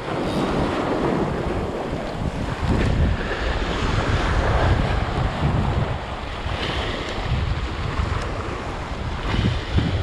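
Sea waves breaking and washing over shore rocks, with wind buffeting the microphone.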